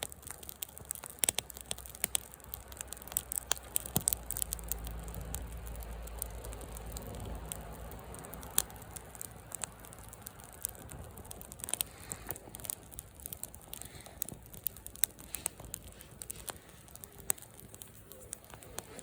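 Wood fire crackling, with frequent sharp pops and snaps. A low hum swells up in the first half and fades away.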